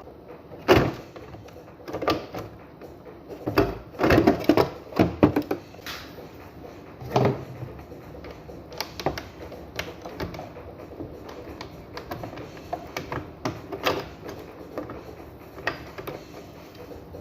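Irregular knocks, clicks and rattles of washing machine parts being handled and fitted back by hand. The louder knocks come in the first seven seconds, then lighter taps.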